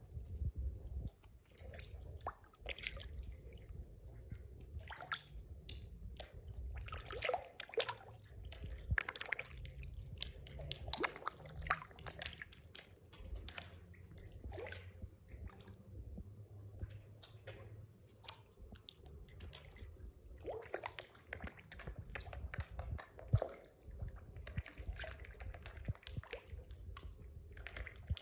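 Goldfish feeding on bread at the water surface: many small, irregular plops, pops and slurps as they gulp at the floating pieces, over a low steady rumble.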